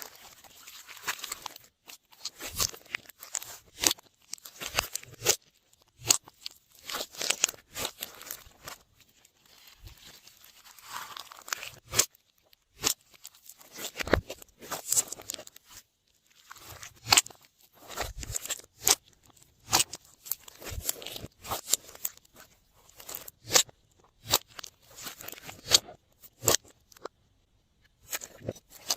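Glossy slime being kneaded and pressed by hand, giving an irregular run of sticky clicks and small air-bubble pops with softer crackling in between.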